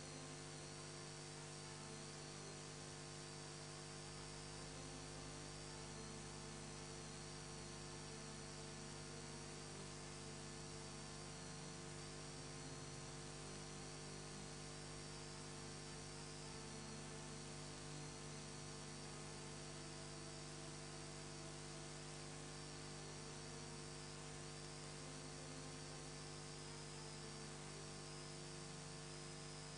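Steady electrical hum with a faint hiss, unchanging throughout, with a faint wavering high whine over it.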